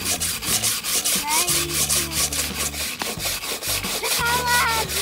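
Cheap steel wire brush scrubbing back and forth along the grain of a torch-charred wooden board, in quick, even, rhythmic strokes. It scratches away the soft burnt wood to bring out the grain texture (wood brushing).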